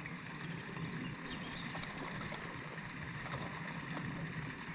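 Steady outdoor background noise with a low hum and a few faint, scattered ticks.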